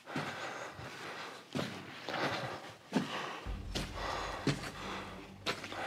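A person walking and breathing in a small enclosed space: a regular series of short scuffing steps and breaths, roughly one to two a second. A steady low hum comes in about halfway through.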